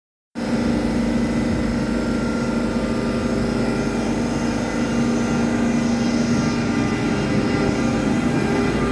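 NS electric locomotive pulling slowly away from a standstill, giving a steady electrical hum and whine from its traction equipment and cooling fans, starting abruptly just after the clip begins.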